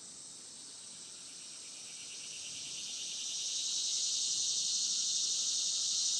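Chorus of insects trilling high and steady, swelling louder from about two seconds in and then holding level.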